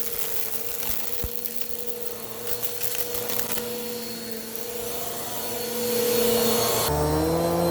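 Bissell vacuum cleaner running up close: a steady motor whine under a hiss, with scattered crackles from the brushroll. About seven seconds in, the sound gets louder, its pitch shifts and a deeper hum joins.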